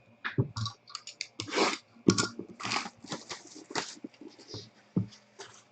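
Card box and pack packaging being handled and opened: an irregular run of short crinkles, scrapes and tearing rustles, several a second.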